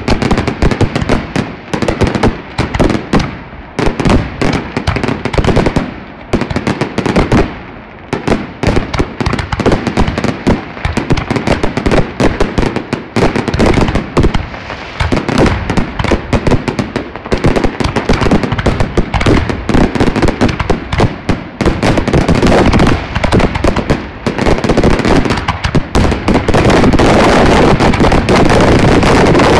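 Aerial fireworks going off in a dense, rapid barrage: many loud shell bursts and crackling reports overlapping one another. Near the end they become almost continuous.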